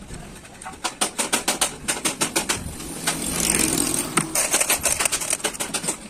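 Rapid metallic clicking and clattering from the gears of an opened Ashok Leyland truck gearbox being worked by hand, several clicks a second, with a denser run of clatter about three seconds in.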